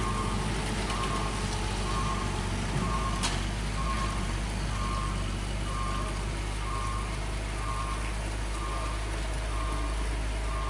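A truck's engine running with a steady low rumble as it pulls up a steep, wet slope, while a single-tone warning beeper sounds about once a second. A sharp click about three seconds in.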